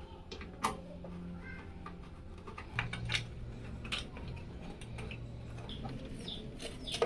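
Scattered light clicks and metallic taps from small PC case parts being handled, over a low steady hum.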